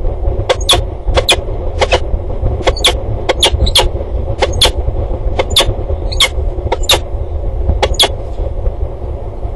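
Steady low rumble with short, sharp, high-pitched ticks repeating about twice a second, often in close pairs.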